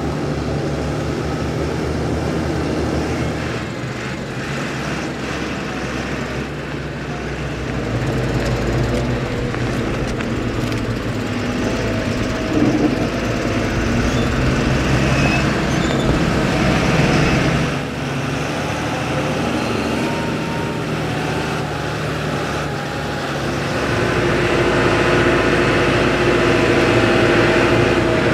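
A Fendt 930 Vario tractor's six-cylinder diesel engine running steadily under load while it hauls a dumper trailer. About four seconds before the end the engine gets louder and its note steps up.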